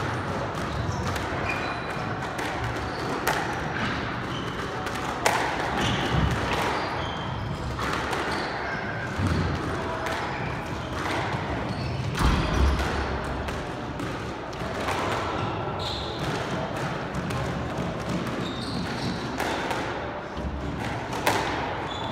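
Squash court between rallies: a few scattered thuds of the squash ball and short squeaks on the hardwood floor, over a steady echoing room noise.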